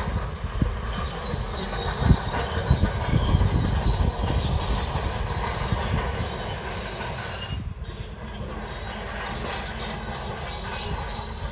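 Shantui bulldozer crawling on its steel tracks: the tracks clank and squeal over the diesel engine's running. There are sharp knocks in the first few seconds, and the sound runs steadier after that.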